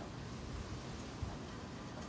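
Faint, steady outdoor ambience before a thunderstorm: an even low hiss with no distinct sounds.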